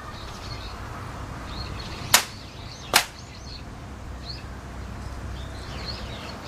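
Two sharp hand claps a little under a second apart: the ritual clapping (kashiwade) of prayer at a Shinto shrine.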